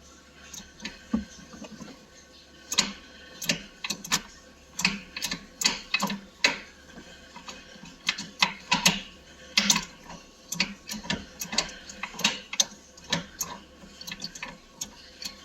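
Short-throw shifter in a New Edge Ford Mustang being worked back and forth through the gears, giving a long irregular series of sharp mechanical clicks and clunks.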